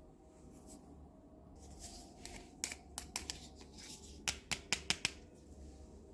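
Small plastic toy kitchen pieces being handled: a run of sharp clicks and taps, ending in a quick series of about six louder clicks.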